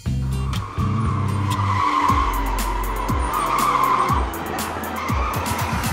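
Electric go-kart tyres squealing as the karts slide through a corner, a steady squeal that is loudest in the middle. Background music with a low bass line plays underneath.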